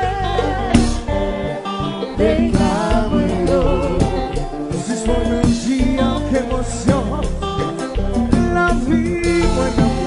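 Haitian konpa band playing live: a male lead voice singing over drum kit, congas and keyboard in a steady dance groove.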